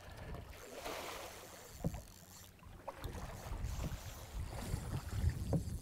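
Water splashing and lapping around a small skiff, with wind buffeting the microphone and a few light knocks against the boat.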